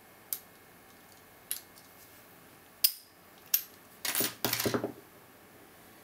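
Metal clicks from the picking tools and the brass FTH Thirard Mach 3 padlock as it is picked open: a few sharp, separate clicks, the loudest with a brief ring about three seconds in. About a second of rattling metal clatter follows near the end as the opened lock and tools are handled and set down on the wooden table.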